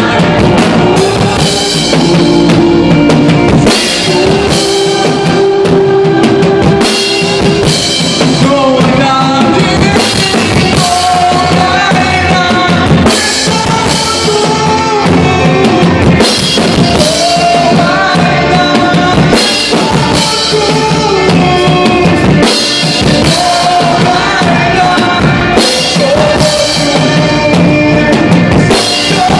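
A man singing a worship song into a microphone over a live band, with a drum kit keeping a steady beat and an electric guitar.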